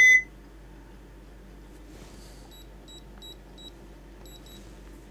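Blaupunkt Q3200 alarm keypad beeping. A louder beep cuts off just after the start, then come about seven short, high key-press beeps in two quick groups as a code is keyed in to disarm the alarm.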